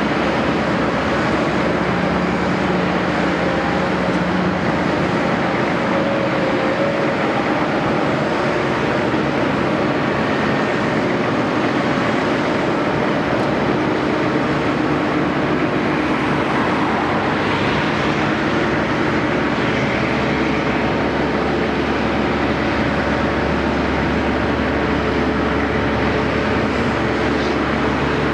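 Caterpillar 329E hydraulic excavator's diesel engine running steadily under work, an even mechanical drone with several steady tones.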